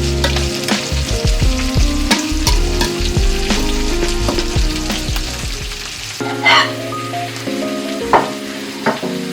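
Food sizzling in a hot pan while it is stirred, with short taps and scrapes of a utensil on the pan. The sizzle thins out in the last few seconds. Background music with held keyboard and bass notes plays underneath.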